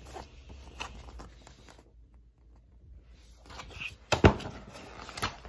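Handling of an open picture book as it is held up and its pages turned, with light paper rustles and taps, and a sharp knock a little after four seconds in.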